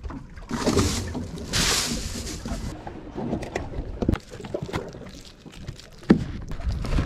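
Cardboard box and plastic wrap rustling as a block of fishing chum is handled, with small clicks and a sharp knock about six seconds in.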